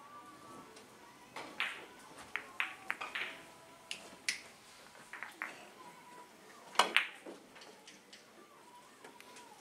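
Carom billiard balls clicking: cue tips striking and balls colliding during three-cushion play, a scattered run of sharp clicks with the loudest pair close together about seven seconds in.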